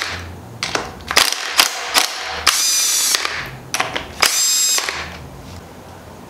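Cordless power tool spinning bolts out of the underside of an aluminium-girdled 4G63 engine block: two short runs of the motor, about two and a half and four and a half seconds in, with clicks and metal clinks between.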